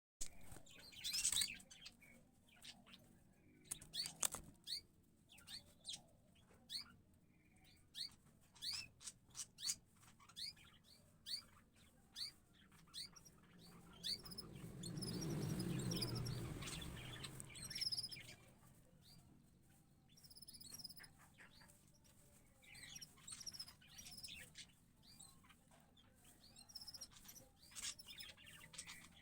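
Many short, high bird chirps in quick runs, from a canary feeding a young sparrow chick. About halfway through, a duller rustling noise swells for a few seconds and fades.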